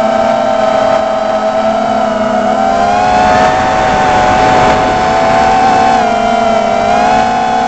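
Armattan Rooster FPV quadcopter's 2300 KV brushless motors and 6-inch propellers whining in flight, picked up by its onboard camera. The pitch rises about three seconds in, dips near six seconds and climbs again as the throttle changes.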